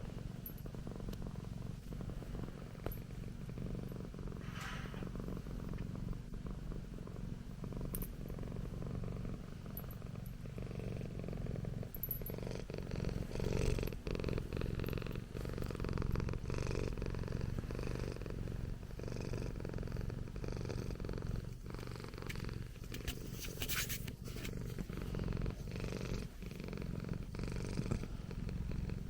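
Persian cat purring: a steady low rumble throughout, with a brief rustle about 24 seconds in.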